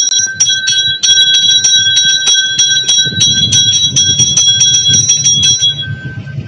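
Hand-held puja bell rung rapidly during aarti, about five strokes a second over a steady ringing tone, stopping near the end.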